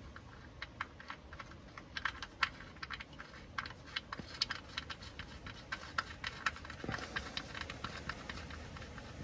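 Light, irregular metallic clicking and tapping, several clicks a second, as the oil drain (sump) plug of a Ford Focus 1.0 EcoBoost is threaded back into the oil pan by hand, not yet tightened.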